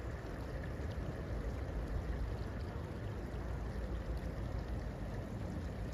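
Steady wind rumbling and buffeting on a handheld camera's microphone, a continuous hiss with a heavy, uneven low rumble.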